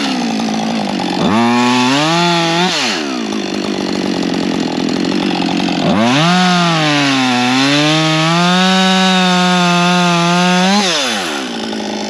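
Husqvarna 562 XP two-stroke chainsaw idling and revving up twice: a short burst about a second in, then a longer run of about five seconds at high revs that dips briefly in pitch partway before dropping back to idle near the end.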